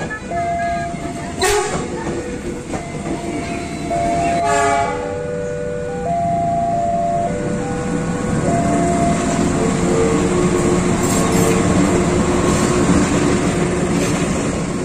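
Indonesian trains: a train horn sounding a series of held notes at changing pitches, then from about eight seconds in the steady rumble and wheel noise of a diesel-hauled passenger train passing close.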